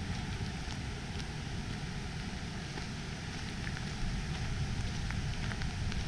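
Waterfall water rushing over rocks: a steady rush with small scattered splashes, a little louder from about four seconds in.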